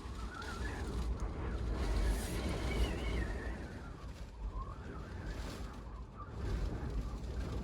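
Storm wind buffeting a kei van, heard from inside the cabin: a low rumble under a steady rush, with a thin whistle that slowly rises and falls with the gusts.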